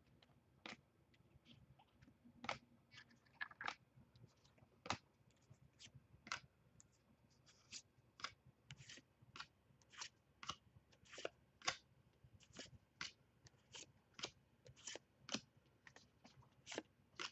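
Stack of Bowman baseball trading cards being flipped through by hand, each card flicked off the stack with a faint, sharp snap. The snaps come about once a second at first and quicken to two or three a second in the second half.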